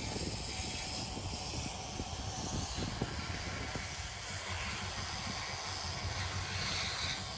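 General Electric diesel switcher locomotive running at a steady rumble, with a hiss over it.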